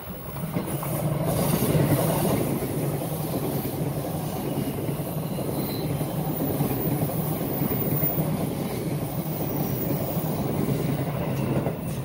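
Two coupled E233 series 2000 electric multiple units passing close by without stopping. The rumble of the wheels on the rails and the running gear builds over the first two seconds, then holds steady as the cars go by.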